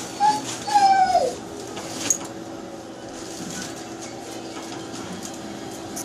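A kinkajou gives two pitched whining calls, a short one and then a longer one that drops in pitch at its end. A sharp click follows about two seconds in.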